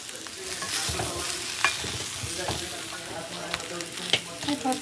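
Boiled potato chunks sizzling in hot oil in a stainless steel pan while a wooden spoon stirs them, with a few sharp clicks against the pan. The sizzle grows louder about a second in.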